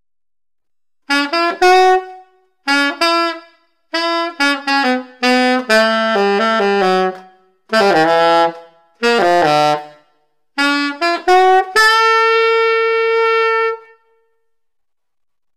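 Solo alto saxophone, a 1979 Selmer Mark VI, playing a run of short phrases of changing notes with brief pauses between them, then one long held note near the end.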